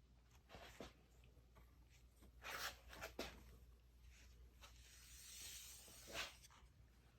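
Faint rustling and scraping handling sounds: several short strokes and a longer soft hiss near the middle, over a steady low hum.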